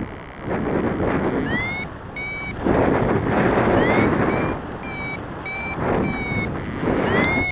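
Wind buffeting the microphone in surges while a paragliding variometer beeps: a run of short high electronic tones, several rising in pitch and others held briefly, about two a second from about a second and a half in. A beeping vario signals that the glider is climbing.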